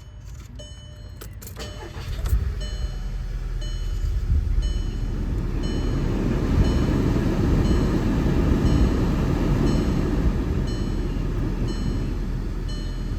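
Rush of air from the car's climate-control blower fan, starting after a clunk about two seconds in and growing stronger over the next few seconds before holding steady, as it runs on the newly fitted fan speed control switch. Through it, the car's electronic warning chime repeats about twice a second.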